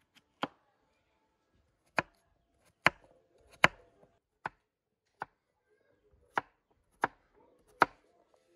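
Chef's knife chopping peeled potatoes on a wooden cutting board: about nine sharp knocks as the blade cuts through and strikes the board, spaced unevenly from half a second to a second and a half apart.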